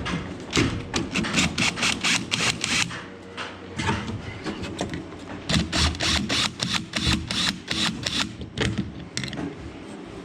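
Quick rasping, scraping strokes in two runs, one starting about half a second in and one from about five and a half seconds: a hand screwdriver working at tight screws on boat rail hardware.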